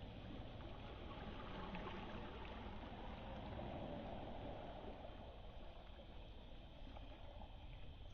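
Faint wash of small waves lapping over a pebble beach.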